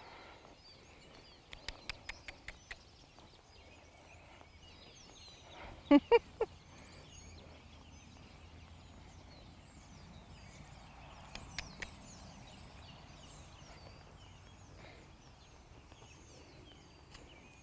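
Three short, loud calls from a farm fowl in quick succession about six seconds in, each falling slightly in pitch. Faint bird chirps run underneath, and a quick run of about seven clicks comes near the start.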